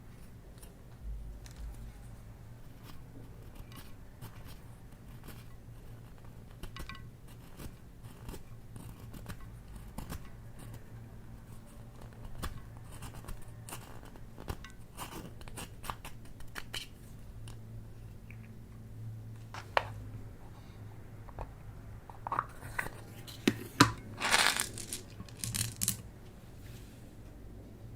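Hands handling small hard objects and packaging: scattered sharp clicks and crackles, with a louder, denser run of crinkling and tearing sounds near the end. A faint steady low hum lies underneath.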